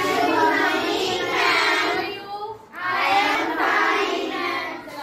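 A class of schoolchildren singing together in chorus, in two phrases with a short break about halfway through.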